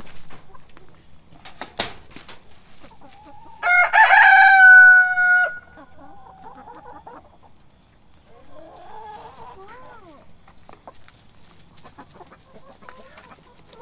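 A rooster crows once, loudly, for a little under two seconds about four seconds in. A single knock comes shortly before it, and quieter hen calls follow later, rising and falling in pitch.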